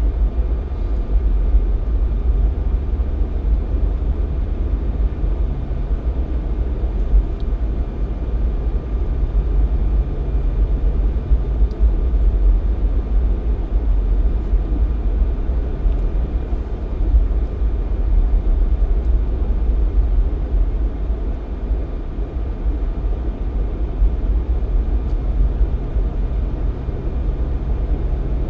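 Jeep Cherokee XJ driving at a steady speed, with a continuous low rumble of engine and tyre noise. A low hum within it drops away about twelve seconds in and comes back near the end.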